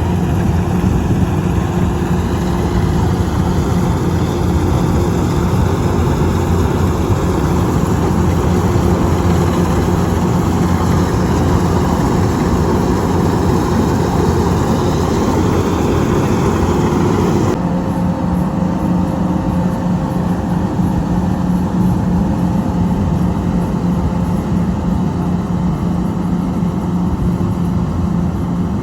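An engine running steadily with a low hum. About two-thirds of the way through, the higher hiss drops away suddenly and the engine note thins.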